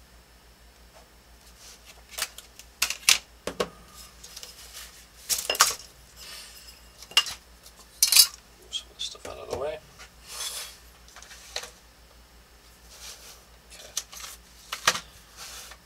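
Plastic drafting triangles, a scale ruler and a pencil being picked up, moved and set down on a drafting table: scattered sharp clicks and taps, with a few short rubbing sounds of tools sliding across the paper.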